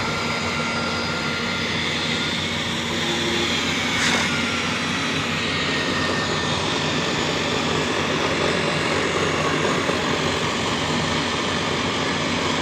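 Concrete core cutting machine running steadily while cutting reinforced concrete: a constant motor whine over a dense grinding noise, with one short knock about four seconds in.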